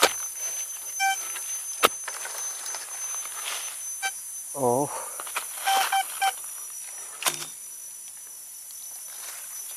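A hand spade digging into forest soil, with a few sharp knocks of the blade. Short electronic beeps from a metal detector come about one, four and six seconds in, the last a quick run of three, signalling metal in the hole. A steady high insect drone runs underneath.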